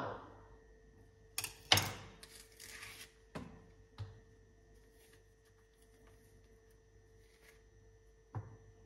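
Kitchen handling sounds at a stone countertop: a sharp knock of a kitchen knife being set down about two seconds in, a short rustle as a banana is peeled, and a few lighter taps.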